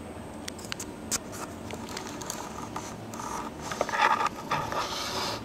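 Scattered plastic clicks and scraping, thickening into a rustling stretch about three to four and a half seconds in: hands handling the LEGO brick locomotive model.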